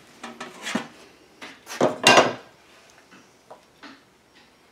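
Metal parts clattering and knocking on a wooden workbench as heated chainsaw crankcase halves and their bearings are handled, with a loud clatter about two seconds in and lighter knocks after.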